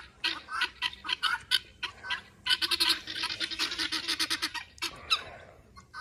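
Flock of helmeted guineafowl giving their harsh, rattling alarm chatter: fast trains of short notes, many a second, in overlapping bursts that thin out near the end. The flock is calling in alarm, nervous of an unfamiliar dog.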